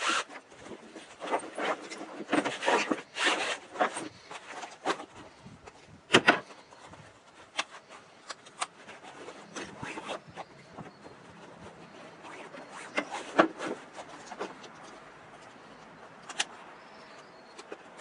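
Nylon fabric and webbing of a MOLLE rucksack being handled, rustling and rubbing irregularly, with a few sharp clicks, the loudest about six and about thirteen seconds in.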